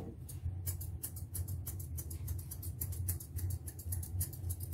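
Thinning shears snipping through a Pomeranian puppy's fluffy coat: a quick, even run of crisp snips, several a second. A low steady hum runs underneath.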